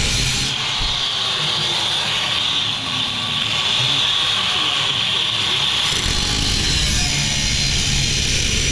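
Angle grinder with a cut-off wheel cutting through automotive sheet steel, a steady high whine with a grinding hiss. The wheel eases off the metal and spins free for a few seconds in the middle, then bites into the steel again about six seconds in.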